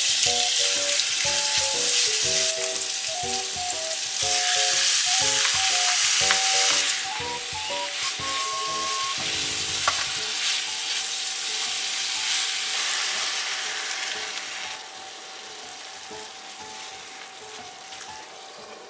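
Minced meat and vegetables sizzling in a frying pan while being stirred with a spatula. The sizzle is loudest about four to seven seconds in and gets quieter after about fifteen seconds. A simple background melody plays through the first half.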